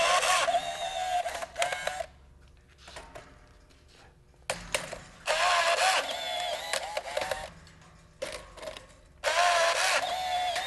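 Benner Nawman BNT-64 battery-powered rebar tying tool running through three tie cycles, each a whirring motor run of about two seconds as it loops, twists and cuts the steel tie wire around crossing rebar. Brief clicks come in the quiet gaps between the runs.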